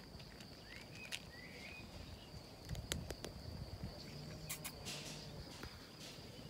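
A steady high-pitched insect trill with a few short bird chirps over it, and scattered soft clicks of two cats crunching dry kibble from a plastic bowl.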